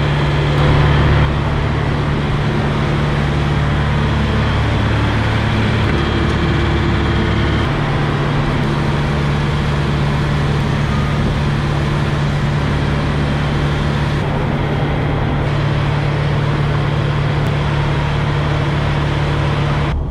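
A diesel engine idling steadily close by, a loud even hum whose low drone shifts slightly about seven or eight seconds in.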